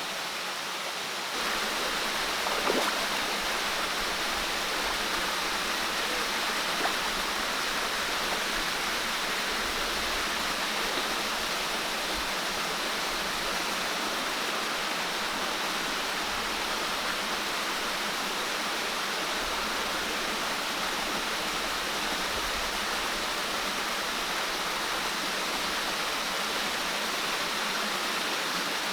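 Steady, even rushing of water, growing a little louder about a second in, with a couple of faint ticks early on.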